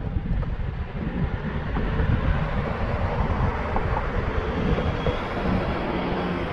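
Road traffic on an adjacent street: a steady noise of tyres and engines with a low rumble, growing a little louder in the middle as a vehicle passes.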